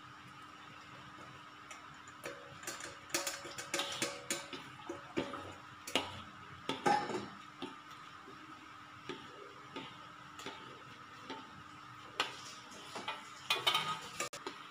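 A metal perforated ladle clinking and scraping against a metal wok while stirring melted palm sugar syrup. The clinks come in busy clusters a couple of seconds in and again near the end, with scattered single taps between, over a faint steady hum.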